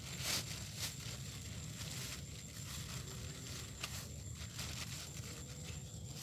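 Brief crinkling rustles from close hand movements: two just after the start, a second or so apart, and a smaller one about four seconds in.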